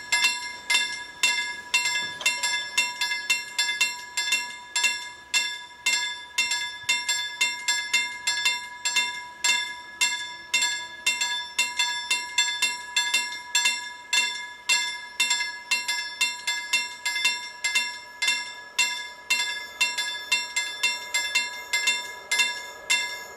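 Level crossing warning bell ringing in a steady run of evenly spaced strikes, with the red lights flashing and the barriers down: the warning that a train is approaching.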